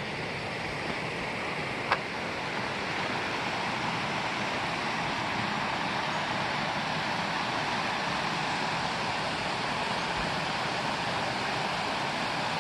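A river's flowing water rushing steadily, with one sharp click about two seconds in.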